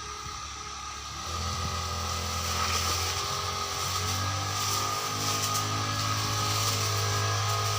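Small petrol engine of a grass-cutting machine running steadily, speeding up and getting louder a little over a second in, then holding at working speed.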